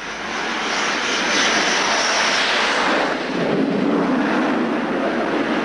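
Su-33 carrier fighter's twin jet engines at full power as it takes off. The loud jet noise swells within the first second and holds strong, then turns deeper from about three seconds in.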